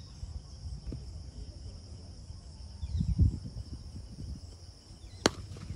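Steady high-pitched chirring of insects in the grass, with a low rumble swelling about three seconds in. A single sharp crack comes about five seconds in: a cricket bat striking the ball.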